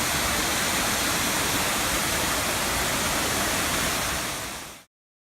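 Miners Falls, a waterfall, rushing steadily as an even wash of falling-water noise. It fades out quickly and stops abruptly near the end.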